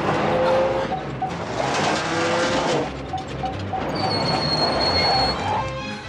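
Film soundtrack mix: a vehicle engine running as it drives, with music and steady tones over it.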